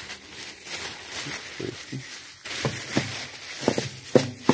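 Plastic shopping bag rustling and crinkling as it is handled, with a few short low sounds among it.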